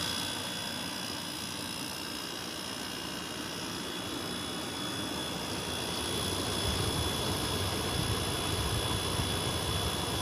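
2003 Whirlpool 5000 BTU window air conditioner (model ACD052MM0) running with its compressor and fan on: a steady hum and rush of air with faint steady high tones. It grows a little louder and deeper about six and a half seconds in. The compressor sounds nice, smooth-running.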